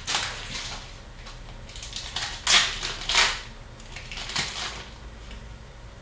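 Hockey trading card packs and cards being handled: several short rustling, crinkling noises, the loudest about halfway through.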